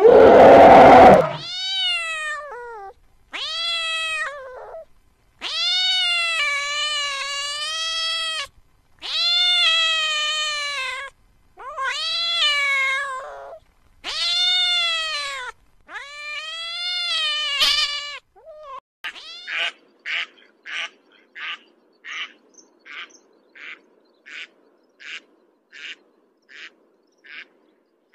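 A domestic cat meowing seven times in long, drawn-out meows that rise and fall in pitch. Before them, the loud tail end of an elephant's trumpet in the first second; after them, from about 19 seconds in, a run of short, evenly spaced duck quacks, roughly one every half second.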